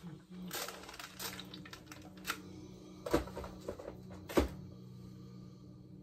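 Light clicks and knocks of small hard objects as fabric is handled, the two sharpest about three and four and a half seconds in, over a low steady hum.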